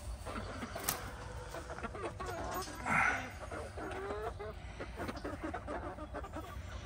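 Backyard chickens clucking, with a few short warbling calls about halfway through.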